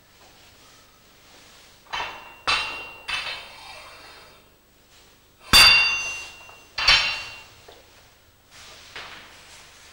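Heavy steel pieces clanging together, about five hard strikes in all, each ringing briefly. The loudest strike comes about halfway through.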